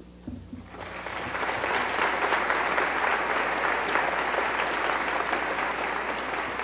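Audience applauding, starting a little under a second in and building to steady clapping that eases slightly near the end.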